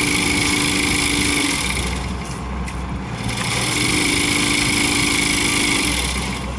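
Buggy-mounted olive trunk shaker's engine running hard in two bursts of shaking, the first about two seconds long and the second about three, with a brief drop in between as the tree is vibrated to bring down its olives.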